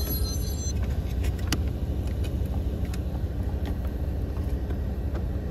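Volkswagen Golf Mk7 running at idle with the air conditioning on, a steady low rumble heard from inside the cabin, with a few faint clicks.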